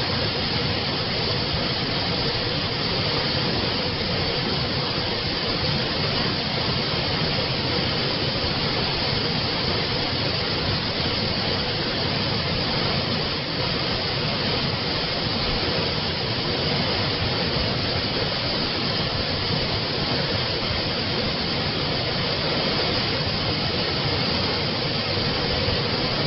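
Water from a spring flowing steadily, a constant even rush of water.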